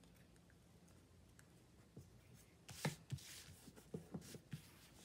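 Quiet handling of paper on a cutting mat: a sharp click and a short rustling swish about three seconds in, then a few light taps and knocks.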